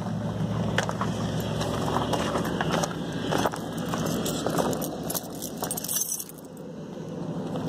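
Keys jangling in hand and footsteps on snowy gravel, over a vehicle engine idling steadily.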